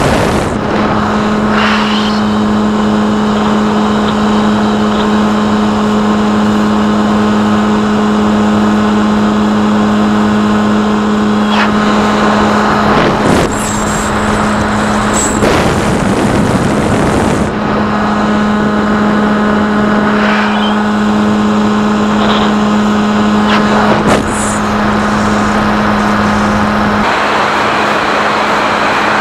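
Electric motor and propeller of a SkyHunter FPV plane droning at a steady pitch in flight, with wind rushing over the airframe. The drone drops out for a few seconds around the middle, leaving mostly wind rush, then returns. Near the end it gives way to wind noise.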